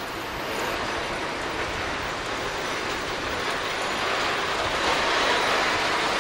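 East German four-wheel tramcar and its trailers rolling past on street track, with the noise of the wheels on the rails getting louder as the train draws near.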